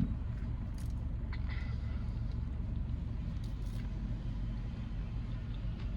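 Steady low hum of a car's engine running, heard from inside the cabin, with a few faint clicks.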